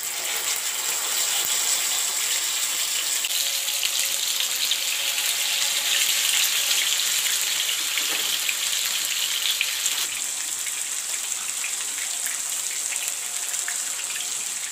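Masala-coated pomfret frying in hot oil in a pan: a steady sizzle with fine crackling that eases a little over the last few seconds.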